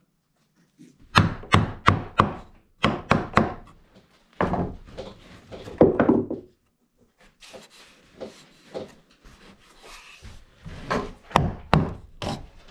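Claw hammer knocking on pine 2x8 lumber: quick runs of sharp strikes, about four or five a second, separated by short pauses, with lighter taps in the middle.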